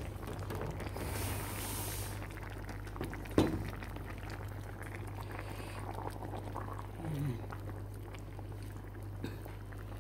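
Vegetables and broth boiling in an aluminium pan on the stove, a steady bubbling. One sharp knock about a third of the way in.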